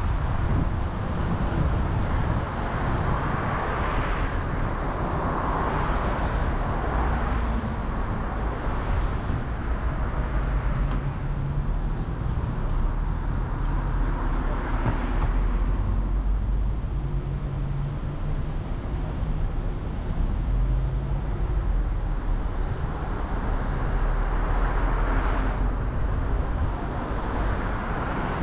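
Car driving: a steady low engine hum and tyre noise on the road, with the road noise swelling and fading several times.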